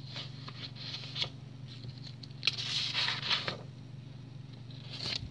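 Sheets of paper being handled and shuffled: a few short crisp rustles, the longest about halfway through, over a steady low hum.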